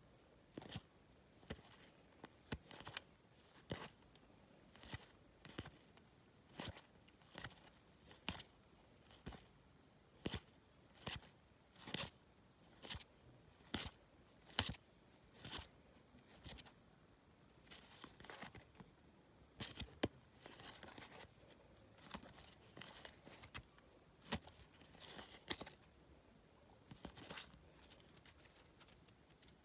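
Match Attax football trading cards being flicked through one at a time, a short, faint swish-snap about every half second. About two thirds of the way through, this gives way to more irregular rustling of card handling.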